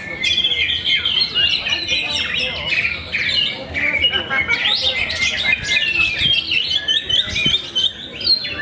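Oriental magpie-robins singing in competition, several at once: a dense, unbroken run of quick chirps, trills and whistles.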